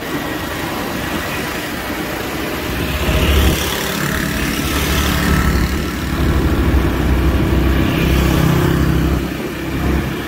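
Motorcycle engine running as the bike is ridden along a street, under a steady rushing noise; the engine picks up revs about three seconds in and again for a few seconds past the middle.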